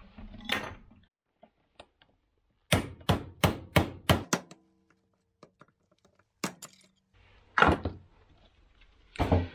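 Hammer blows on a cold chisel driven between two spot-welded 1.5 mm steel angles clamped in a vise, forcing the spot welds apart to test their strength. A quick run of about seven sharp strikes comes first, a little over three a second, then a few single blows.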